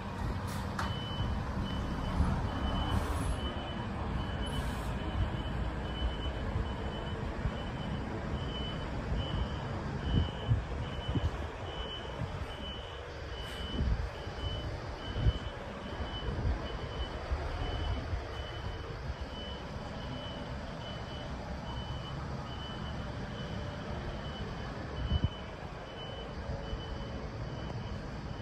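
Vehicle reversing alarm sounding a steady series of short high beeps, over a low rumble of traffic with a few louder knocks.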